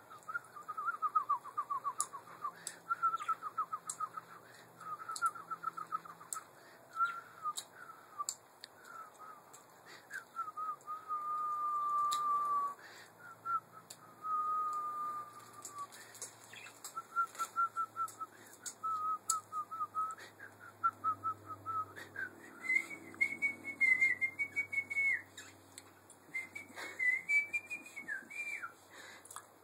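A person whistling in a string of quick warbling trills, then two long held notes about ten seconds in, then higher, shorter chirping notes in the last third.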